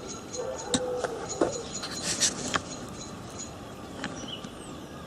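A few light clicks and knocks, with a faint steady hum over the first second and a half.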